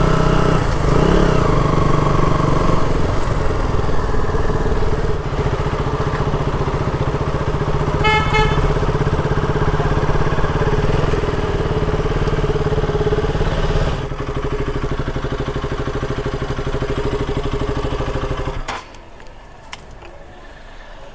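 KTM RC 200's single-cylinder engine running as the motorcycle rides slowly, with a short horn beep about eight seconds in. About fourteen seconds in it settles to a slow, pulsing idle, and it is switched off shortly before the end.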